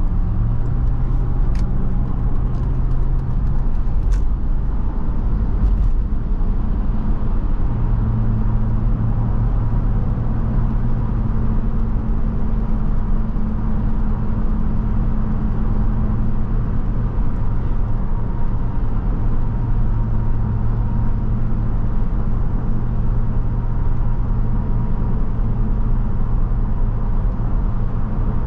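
Truck engine running at a steady cruise, a constant low hum over tyre and road noise. The hum grows stronger and slightly deeper about eight seconds in.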